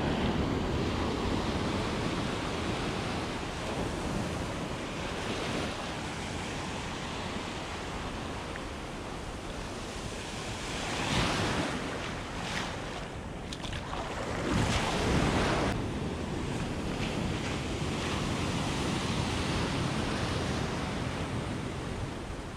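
Ocean surf washing up over the sand and draining back at the water's edge, a continuous rush that swells louder twice past the middle.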